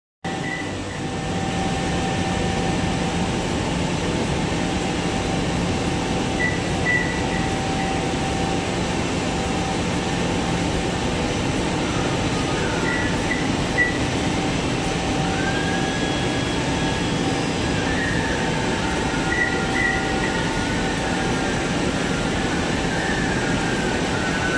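Rotogravure printing press running while printing aluminum foil: a steady mechanical hum and whir from its rollers and drives. Thin, high wavering tones come and go in the second half.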